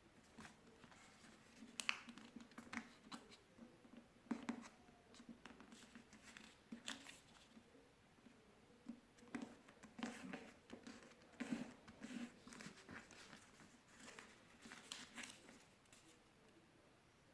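A sheet of paper being folded and creased by hand: faint, irregular rustles and crackles as the paper is handled and pressed down.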